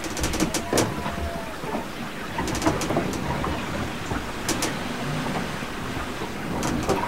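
Inside the hull of a sailing yacht under sail at about 7.5 knots on a broad reach: a steady rush of water along the hull, with scattered clicks and knocks from the boat's fittings as it rolls in a slight swell, and a short creak about a second in.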